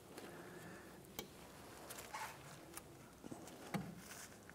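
Faint, scattered clicks and light scraping as a new brake pad is handled and seated into the metal hardware clips of a caliper bracket.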